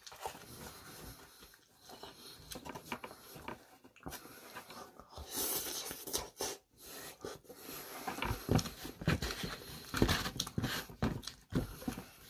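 Close-up eating sounds: slurping rice vermicelli noodles, with wet chewing and breathing through the nose, and small clicks of a plastic fork against a styrofoam container. A longer hissing slurp comes about halfway through.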